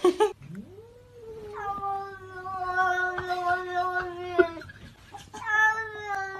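A short clatter, then a domestic cat yowling in two long, drawn-out cries: the first rises in pitch and is held steady for about four seconds, and the second begins about a second after it ends.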